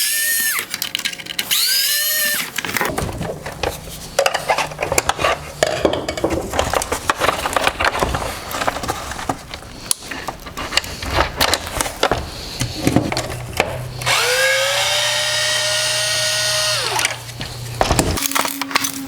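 Electric screwdriver spinning up and winding down in short runs as it backs screws out of a plastic headlight housing, with its longest run about fourteen seconds in. In between come irregular clicking and rattling of screws and plastic parts being handled.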